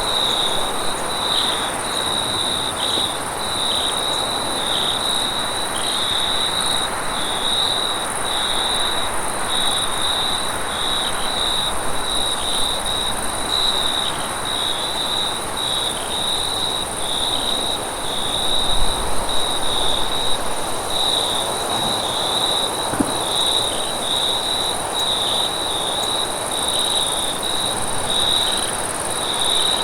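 Night-time forest ambience of insects chirping: a continuous high trill that pulses slightly at a fairly even pace, with a fainter, higher insect hiss above it and a soft, even background hiss.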